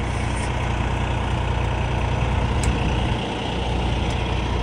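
Semi-truck diesel engine idling steadily, a low even hum, with a couple of faint clicks.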